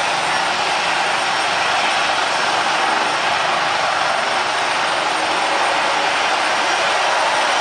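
Steady turbine whine and rush from a military helicopter idling on the ground with its main rotor turning, blended with the engines of a rear-engined business jet taxiing behind it.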